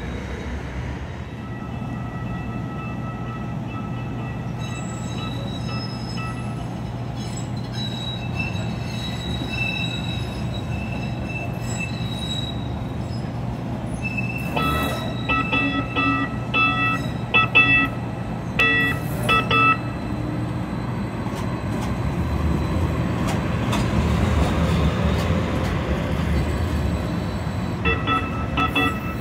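Siemens light rail train running along street track and passing close by, with a steady hum and high whine. High, stuttering tones sound from about halfway through for several seconds, and again near the end.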